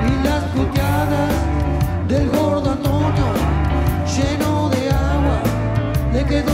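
A live rock band plays, with electric guitars, electric bass and drums under a sung vocal.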